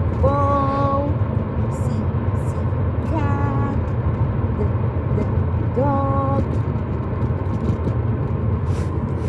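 Steady low rumble of a car driving. A high voice sounds a short held note three times over it.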